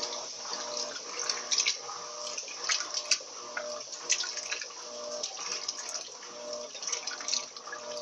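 Turbo LT13B 13 kg top-loading washing machine agitating on its heavy-soil setting during a rinse: water sloshing and splashing as the agitator swings the clothes back and forth, over a motor hum that comes and goes with each stroke.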